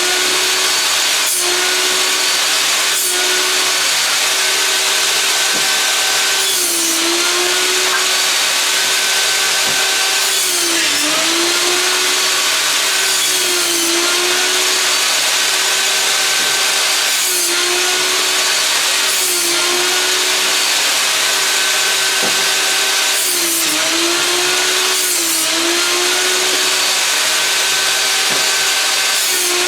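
Einhell table saw running steadily and cutting through wooden boards. The motor's hum drops briefly in pitch each time the blade bites into the wood, repeatedly through the stretch, with a rasping burst of sawing noise at each cut.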